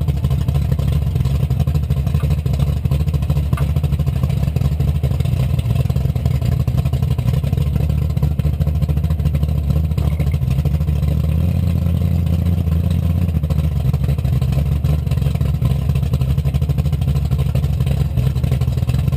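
A car's engine and exhaust drone with road noise, heard from beneath the car beside the rear axle while it drives; the low drone steps up a little in pitch and gets louder about two-thirds of the way through.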